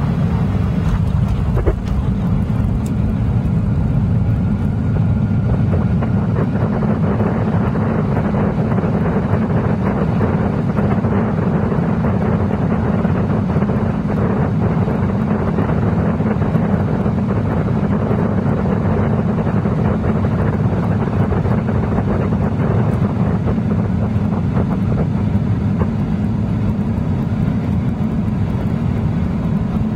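Steady, loud rumble inside the cabin of a Boeing 737-800 rolling along the runway after touchdown: its CFM56 engines and the wheels on the runway.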